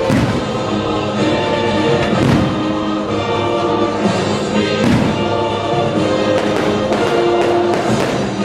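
Orchestral music with a choir, with the sharp thuds of aerial fireworks bursting over it: single bursts about two and five seconds in, and a quick cluster near the end.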